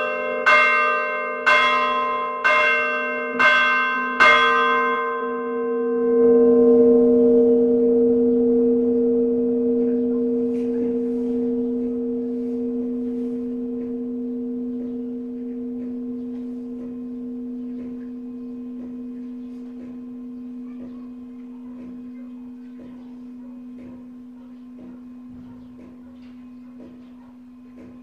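Church bells rung for noon, heard close up inside the belfry: struck about once a second for the first few seconds, then the strokes stop. The bells' deep hum rings on and slowly fades away.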